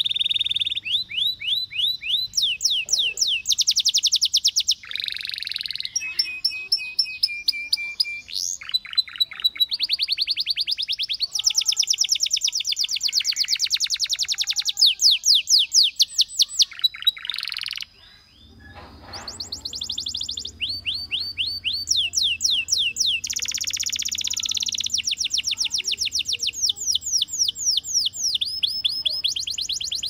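A caged domestic canary singing a long, unbroken song of fast trills and rolls, each a rapid run of repeated high notes, with a brief break about eighteen seconds in before it starts again.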